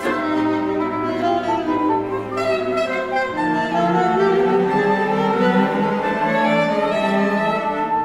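Symphony orchestra playing classical music, with sustained bowed strings to the fore and a melody climbing slowly through the second half.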